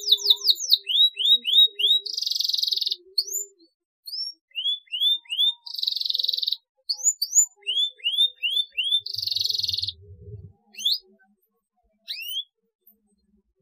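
Domestic canary singing: a fast rattle of repeated notes at the start, then phrases of three or four quick upward-sweeping notes alternating with short buzzy trills, thinning to a few single rising chirps near the end.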